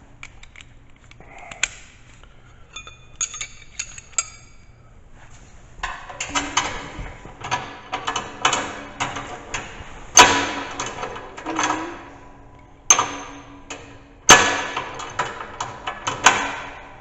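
Hand tools and steel plow-mount parts clinking and knocking as bolts are fitted and tightened: a few scattered clinks with a brief metallic ring early on, then a busier run of clicks and knocks with three loud metal bangs in the second half.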